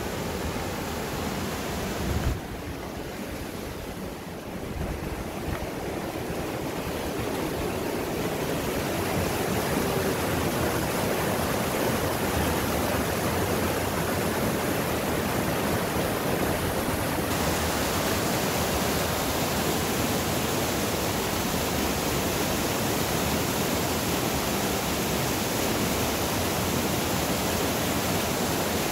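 Rushing water of a small mountain river, a steady full rush over rocks, with a brief knock about two seconds in.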